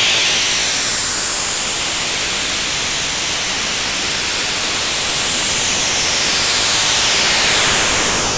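Synthetic masking noise for tinnitus relief: a steady, loud hiss weighted toward the treble, with a slow sweeping shimmer in the high tones. It begins to fade out near the end.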